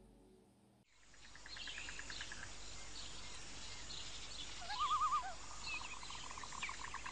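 Outdoor nature soundscape starting about a second in: birds chirping and trilling over a steady hiss. A little past the middle, a wavering call gives way to a fast, evenly pulsed call.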